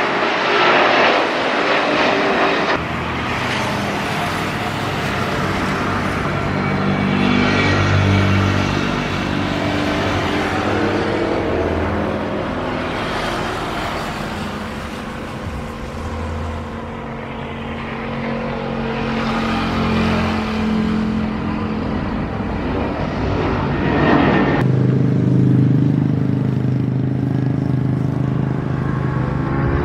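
Airliner jet engines at high power in three cut-together stretches. First an Airbus A330 climbing away after takeoff. Then an Airbus A320-family jet's engines on the runway, a steady humming drone that swells and rises in pitch through the middle. Near the end another Airbus A330 takes over with a louder, deeper drone.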